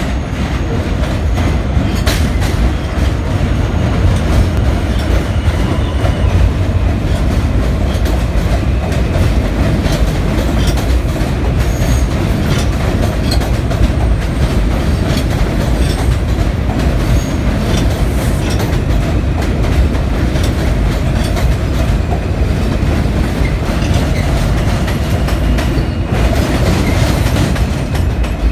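New York City Subway R160 and R179 trains running through an elevated station: a steady, loud rumble of steel wheels on the rails with clickety-clack over the joints and some faint wheel squeal.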